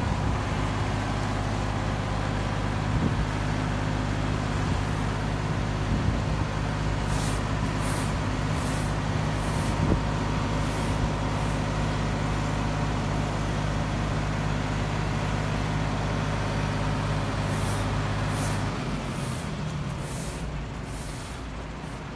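Fire brigade turntable ladder truck's diesel engine running steadily at raised speed to drive the ladder hydraulics; its hum drops away about nineteen seconds in. Short hissing sounds come in two clusters, about seven to eleven seconds in and again near the end.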